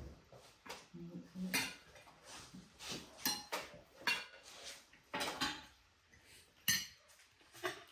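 Dishes and cutlery clinking and scraping, with about six sharp clinks spread a second or so apart.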